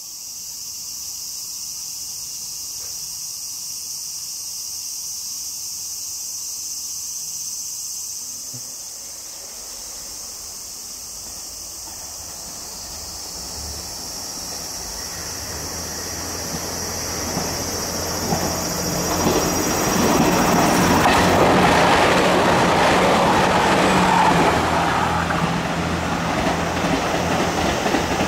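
JR Shikoku 2700 series diesel railcar approaching and passing with its engines put back under power, the engine note and rail noise building over the second half and loudest about three-quarters through. Insects shrill steadily throughout.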